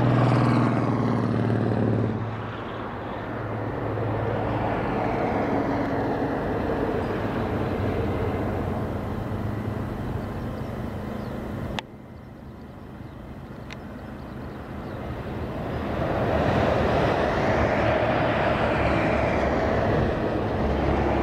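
Jet engine roar of a Boeing 747-8 freighter's GEnx engines on final approach, a steady rushing noise that swells and fades. The level drops suddenly about halfway through, then builds again near the end.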